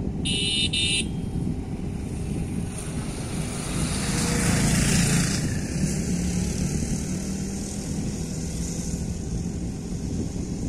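Wind rumbling on the microphone over a passing engine, which swells about four seconds in and fades a few seconds later. A brief high chirp sounds near the start.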